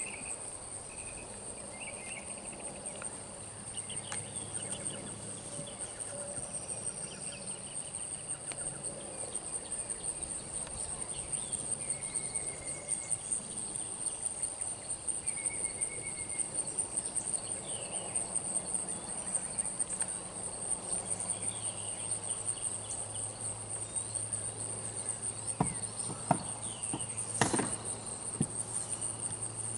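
Steady high-pitched insect chorus. Near the end come a few sharp knocks as the horse's hooves step onto a low wooden platform.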